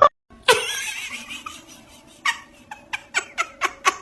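Someone laughing: a quick string of short ha-ha sounds, about four a second, through the second half.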